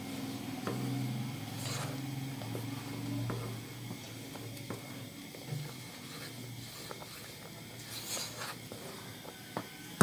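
Wooden spoon stirring a thickening milk mixture in a non-stick pot, with soft scrapes and small knocks against the pan over a low steady hum.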